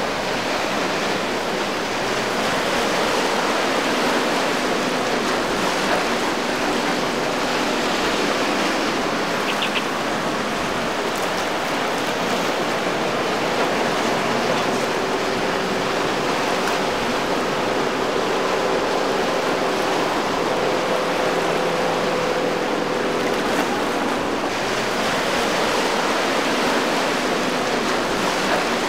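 Rough surf and breaking swells rushing in an inlet, a steady wash of water noise, with the faint hum of a boat's outboard motors running under it, clearest through the middle.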